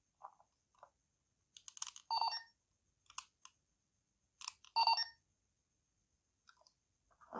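Dekaranger SP License DX toy changer being handled: small plastic clicks and two short electronic beeps about two and a half seconds apart.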